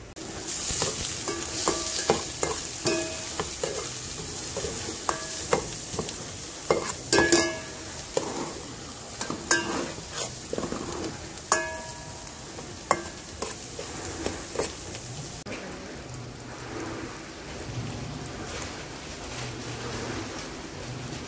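Minced garlic sizzling in hot oil in a steel pot, with a metal spoon clinking against the pot as it is stirred. The sizzle eases a bit about two-thirds of the way through.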